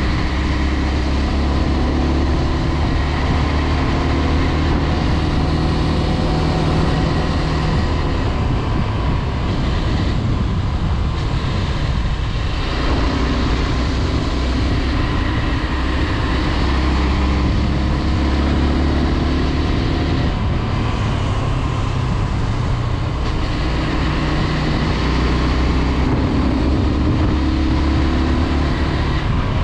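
Honda CBX 250 Twister's single-cylinder, air-cooled four-stroke engine running while riding, over wind noise. The engine note changes pitch several times: around 8 seconds in, about 12 seconds in, and again near 20 and 23 seconds.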